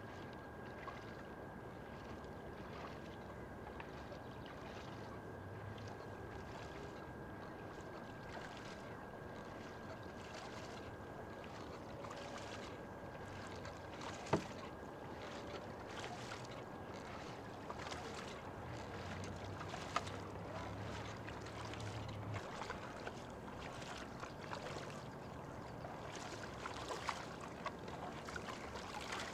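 Paddle blades of a two-person sprint kayak dipping into the water in a regular stroke rhythm, each catch making a short splash, over a steady outdoor hiss. A single sharp knock about halfway through is the loudest sound, and a faint steady high whistle runs through the first third.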